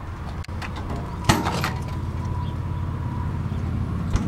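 Latch of a truck-bed tool box door clicking once, sharply, as its paddle handle is worked, then a dull knock near the end, over a steady low rumble.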